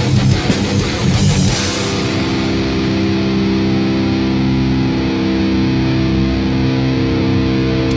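Grindcore band playing live: distorted electric guitar and drums hammering for under two seconds, then the drums drop out and a distorted guitar chord is left ringing, held steady. Drum hits come back in right at the end.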